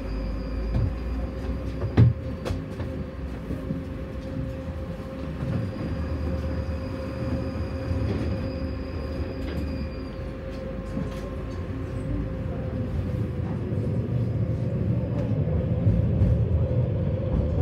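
Tram running along the rails: a steady low rumble of wheels on track with a steady motor hum and a thin high whine that comes and goes. There is a sharp clack about two seconds in.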